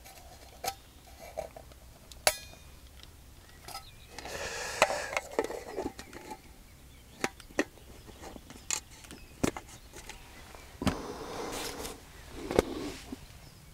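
A spoon clinking and tapping against a stainless-steel thermal mug, with scattered small knocks and two short stretches of rustling and scraping.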